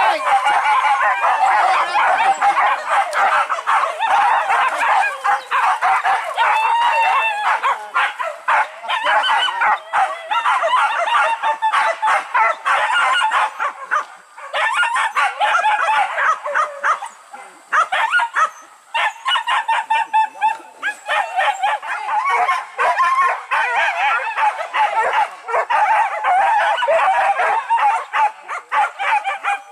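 Pack of boar-hunting dogs barking and yelping over one another, almost without a break.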